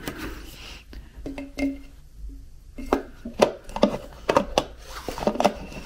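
Hard plastic parts being handled: a pressure washer's spray nozzle and its detergent bottle knocking and clicking against each other in the hands. The clicks and knocks come in a quick run in the second half, with some rustling.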